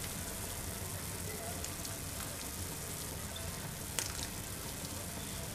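Vegetable broth boiling in a kadhai, a steady bubbling hiss, with a light tap about four seconds in.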